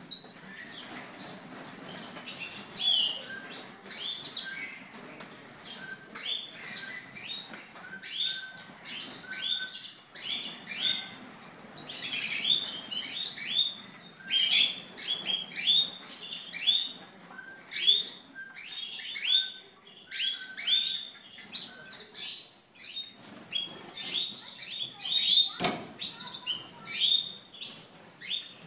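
A flock of small aviary finches chirping, many short overlapping calls in a busy continuous chatter. A single sharp knock comes about 26 seconds in.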